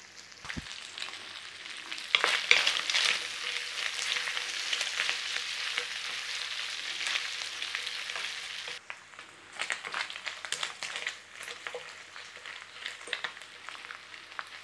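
Diced bacon sizzling in fat in a frying pan while a wooden spatula stirs it, scraping and tapping against the pan. The sizzle is louder from about two seconds in and drops off abruptly about nine seconds in, leaving quieter sizzling and spatula scrapes.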